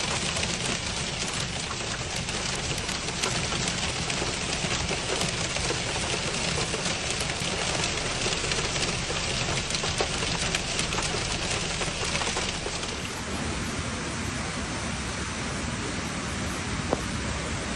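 Heavy rain pouring down, a dense steady hiss with the fine patter of drops hitting surfaces. About two-thirds of the way through, the hiss eases slightly.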